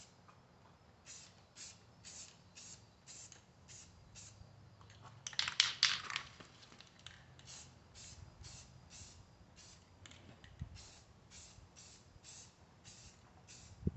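Aerosol can of Rust-Oleum trim and bumper paint spraying in short repeated bursts, about two to three a second, with a longer, louder spell of spraying about five seconds in.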